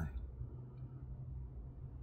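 Quiet pause inside a vehicle cab: a faint, steady low hum and no other clear sound.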